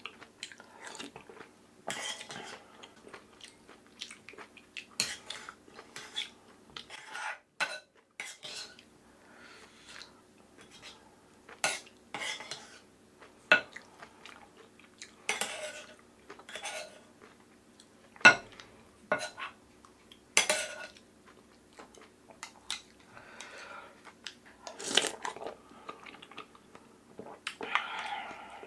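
A spoon clinking and scraping against a glass bowl and an earthenware pot in irregular strokes, mixed with chewing of oyster rice soup.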